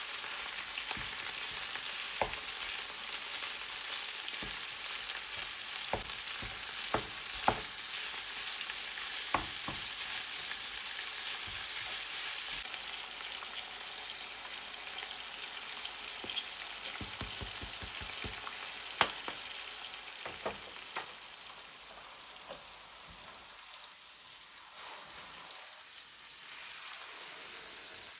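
Food sizzling in a frying pan, with scattered light taps and clicks from a utensil stirring it. The sizzle eases off over the second half.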